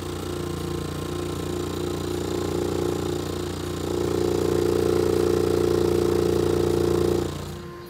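Fi BTL 'UFO' 18-inch subwoofer driven in free air by a signal generator's low test tone of about 25 to 30 Hz, the cone pumping with a steady droning hum. It grows louder about four seconds in and dies away about seven seconds in.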